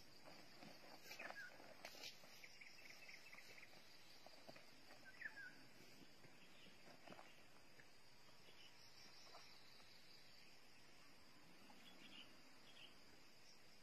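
Near silence over a faint, steady high-pitched insect drone, with a few scattered short bird chirps and a couple of faint clicks in the first two seconds.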